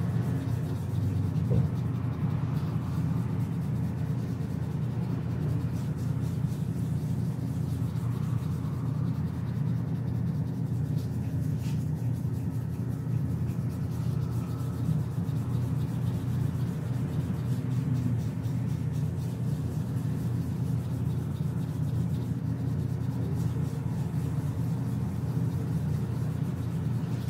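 Electric hair trimmer buzzing steadily as it runs along the jaw and beard.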